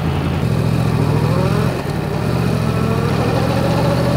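Yamaha MT-10's crossplane inline-four engine running steadily at low revs.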